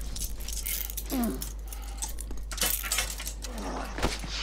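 Metal handcuffs jangling and clicking as they are snapped onto a man's wrist, in a scuffle.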